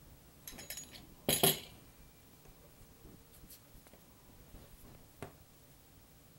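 Handling noises at a cake-decorating mat: a few light clicks, then one short, loud clink about a second and a half in as the metal fondant cutting wheel is put down, followed by faint taps and one more click near the end.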